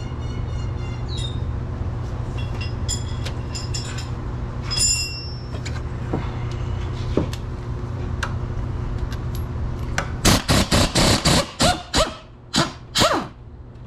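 Air ratchet run in short trigger bursts, about seven quick ones and then two longer ones near the end, backing out an engine mount bolt. Before it come a few short ringing metallic clicks over a steady low hum.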